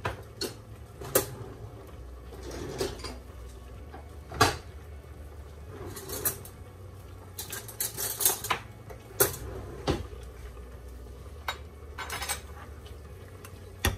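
Kitchen items being handled on a countertop: about a dozen scattered sharp clinks and knocks, with a faint low hum underneath.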